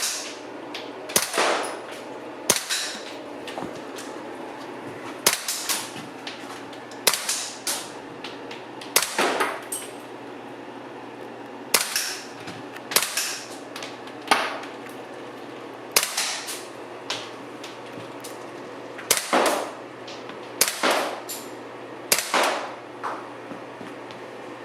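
WE M27 IAR gas blowback airsoft rifle firing semi-auto, one or two shots at a time with pauses of a second or more between them. Each shot is a sharp crack of the gas-driven bolt cycling, followed by a brief ringing tail.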